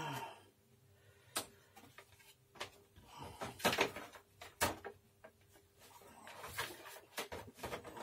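Plastic vacuum-cleaner housing parts and a rubber seal being handled and pushed into place: several sharp knocks and clicks, then rustling near the end.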